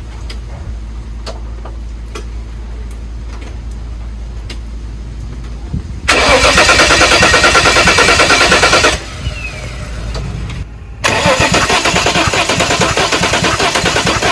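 Holden VL Commodore engine being cranked by the starter motor in two bursts of about three and four seconds, a fast even chugging that does not catch: the engine fails to start, although fuel pressure and spark have been confirmed. Before the first crank there is a low steady hum.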